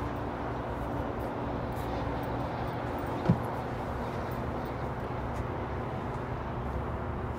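Steady low background rumble and hum, with a single short knock about three seconds in.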